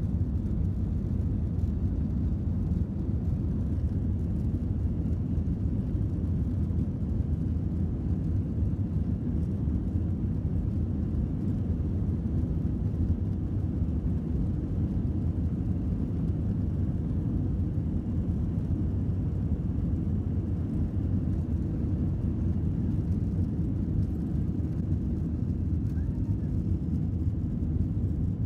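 Cabin noise of an Airbus A320-200 during the takeoff roll and lift-off: a steady low rumble of the engines at takeoff power and the wheels on the runway, heard from a window seat.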